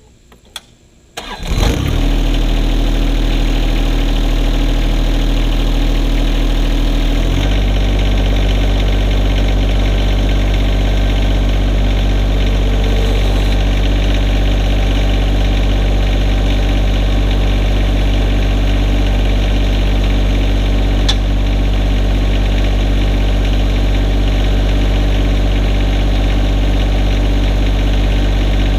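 John Deere 1025R's three-cylinder diesel engine cranking and catching about a second in, then running steadily; about seven seconds in it steps up to a higher, steady engine speed.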